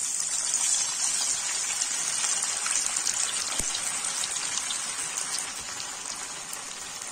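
Battered chicken pieces deep-frying in hot oil on a high flame, the second fry to crisp them: a steady, dense sizzle full of fine crackling, easing a little toward the end.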